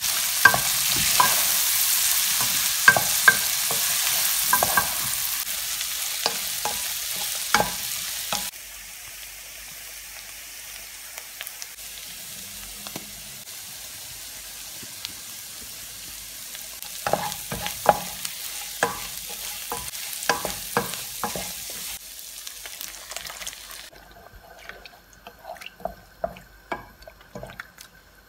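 Shrimp sizzling in hot olive oil in a nonstick pan while a wooden spatula stirs, scraping and knocking against the pan. The sizzle is loud at first and drops to a softer sizzle after about eight seconds. Near the end the sizzle gives way to quiet stirring in liquid, once the coconut milk is in.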